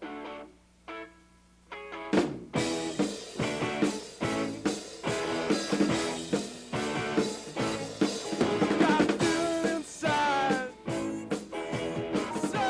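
A rock band playing: electric guitars and a drum kit, with a male singer. A few guitar notes sound first, and the full band comes in about two seconds in.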